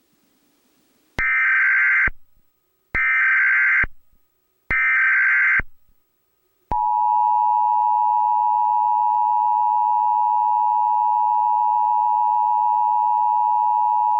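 Emergency Alert System signal: three short bursts of the warbling digital SAME header, each just under a second long and about a second apart. About seven seconds in, the steady two-tone EAS attention signal starts and holds.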